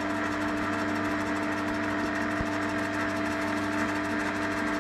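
Small metal lathe running at about 300 RPM with no cut being made: a steady motor and gear hum with a constant whine.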